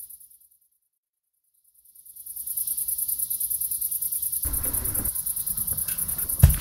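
Crickets chirring in a steady, fast-pulsing high trill that fades out, leaves a second or so of silence, and fades back in. Low rumbling noise joins later, and one sharp low thump comes near the end.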